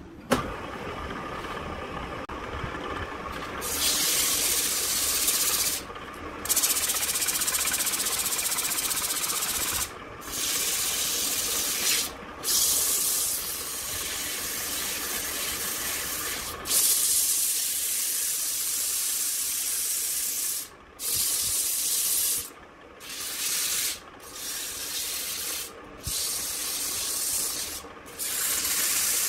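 Sandpaper held by hand against a wooden vase spinning on a wood lathe, making a steady hiss. The lathe runs more quietly for the first few seconds, then the hiss comes in and breaks off briefly several times.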